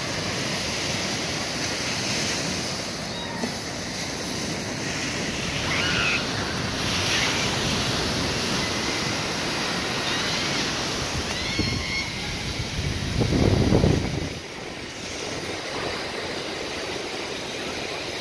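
Surf breaking and washing steadily onto a sandy beach, with a gust of wind buffeting the microphone about two-thirds of the way through.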